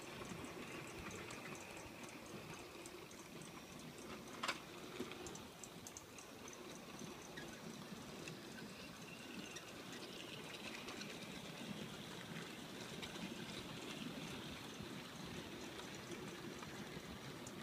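A long rake of 00-scale model freight wagons rolling past on the track: a steady, light rattling rush from the small wheels, with fine ticking over the rail joints. One sharp click about four and a half seconds in.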